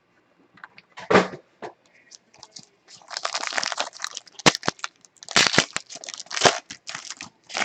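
Trading-card pack wrappers being torn open and crinkled, with irregular crackling and sharp clicks that get busier about three seconds in.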